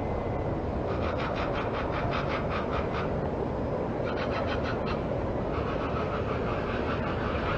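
Eurasian magpies chattering: harsh rattling strings of chak notes at about six a second, in three bouts starting about a second in, about four seconds in and about five and a half seconds in. A steady low rumble runs underneath.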